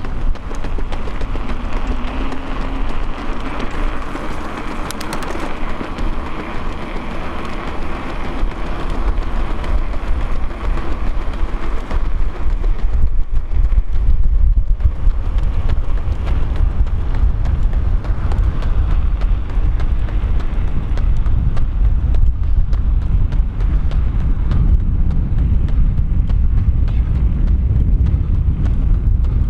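Wind buffeting the microphone as a low rumble that grows stronger about halfway through, with road traffic under it.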